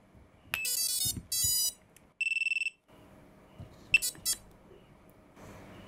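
FPV quadcopter's ESCs playing their startup tones through the motors as the LiPo battery is plugged in: two quick runs of stepped electronic notes, a short steady beep a little after two seconds, then a few quick beeps about four seconds in.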